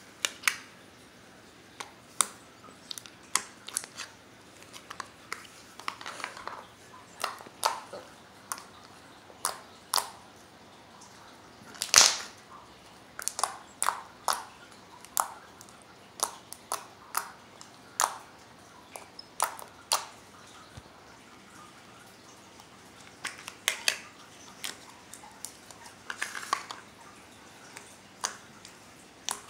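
Slime being squished and poked by hand, giving irregular sharp clicks and pops, with a louder pop about twelve seconds in.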